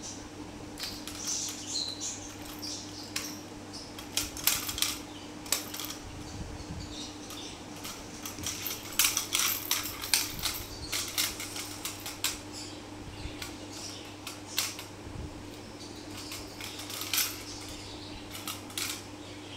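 Small toy clicking and clattering on a hard marble floor as a kitten bats and chases it, in irregular bursts of sharp taps, over a steady low hum.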